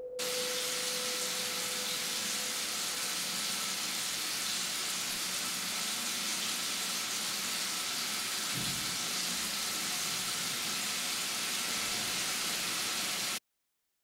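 A steady, even hiss like white noise, cutting off suddenly near the end.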